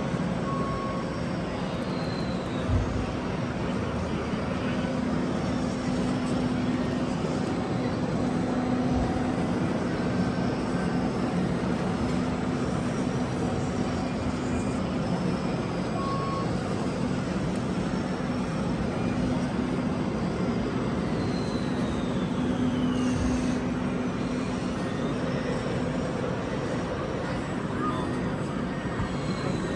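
Steady hum of a small motor over a murmur of voices.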